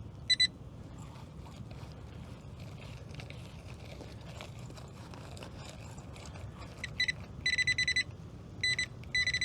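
Handheld metal-detecting pinpointer beeping at one steady high pitch. Two short blips come near the start, then from about seven seconds in a string of longer bursts as it closes in on a target in the dug hole.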